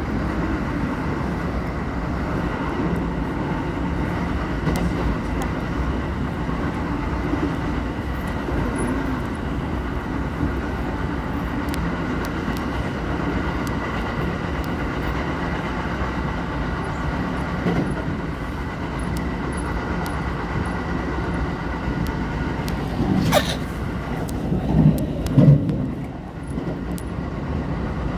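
Kintetsu Nara Line electric train running at speed, heard from inside the carriage: a steady rumble of wheels on rail with a thin steady high tone over it. About 23 seconds in there is a sharp knock, followed by a few brief louder swells.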